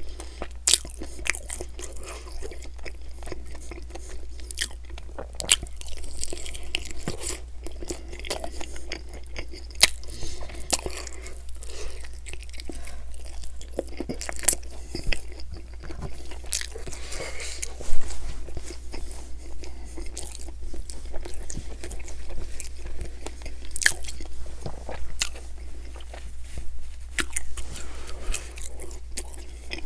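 Close-miked eating of chicken wings: crunchy bites and wet chewing, with irregular sharp crackles and smacks as the meat is pulled from the bone, the loudest snap about 18 seconds in. A steady low hum runs underneath.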